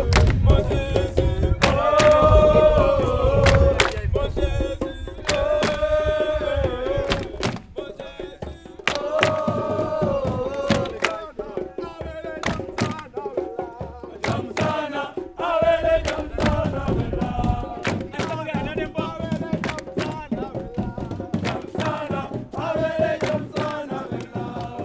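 Background music: a song with a sung melody over sharp, irregular percussion hits.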